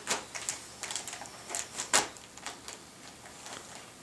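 Wrapping paper crinkling and crackling as a black Labrador retriever chews and tugs at a wrapped present, in irregular snaps with the loudest about two seconds in, thinning out near the end.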